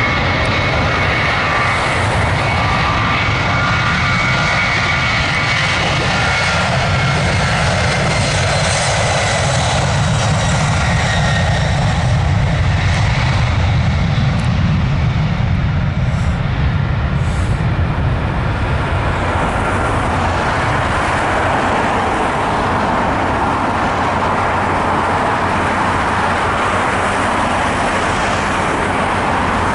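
Airbus A300-600 freighter's twin turbofan engines at takeoff power: a loud, steady jet roar with a deep rumble. A whining tone rides on top for the first dozen seconds or so, then gives way to an even rushing noise.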